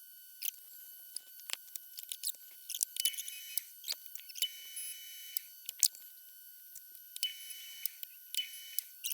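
Small metal lathe running with a steady high whine while the cutting tool takes a facing cut. The tool scrapes the metal in four short hissing passes, over scattered sharp ticks.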